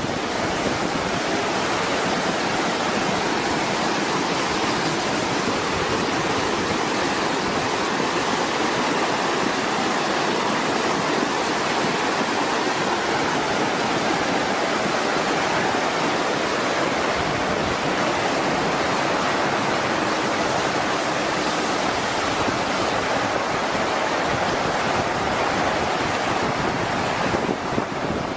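Steady, loud rush of fast-flowing floodwater.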